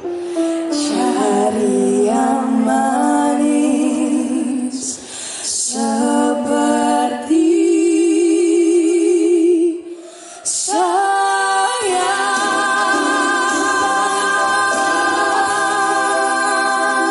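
Two women singing a duet into microphones through a PA, phrases with vibrato broken by short pauses, then a long held note from about twelve seconds in with lower accompanying notes moving beneath it.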